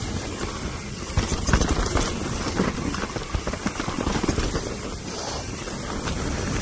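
Mountain bike descending a dirt singletrack: knobby tyres rolling over dirt and roots under a steady rushing noise, with many short knocks and rattles from the bike over the bumps, busiest about a second in and again around four seconds in.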